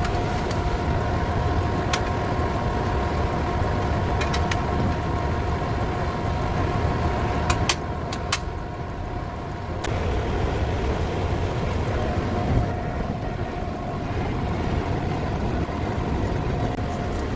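Large ventilation fan running steadily with a low rumble and a constant hum, and a few sharp clicks from installation work on top of it.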